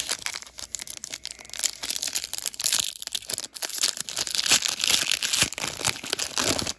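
A sports card pack's plastic wrapper crinkling and tearing as it is opened by hand, a dense run of crackles that cuts off suddenly.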